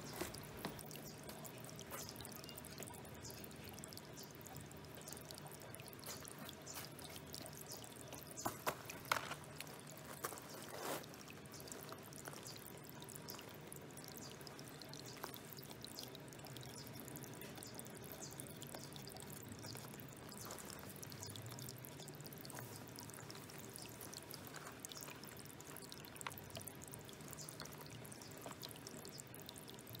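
A thin stream of water pouring from a bamboo spout into a small water-filled bowl pond: a steady trickling splash. A few short, sharper ticks stand out about a third of the way in.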